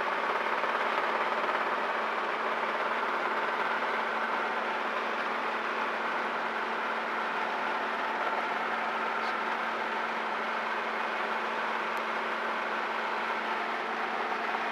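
Robinson R22 helicopter cabin noise in cruise flight: engine and rotors give a steady drone with a constant low hum, unchanging throughout.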